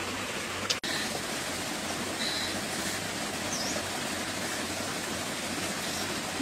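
Steady outdoor background hiss, even and water-like, with a few faint high chirps. It drops out briefly with a click just under a second in.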